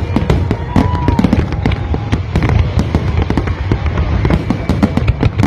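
Fireworks display: a dense, continuous run of bangs and crackles over a constant low rumble.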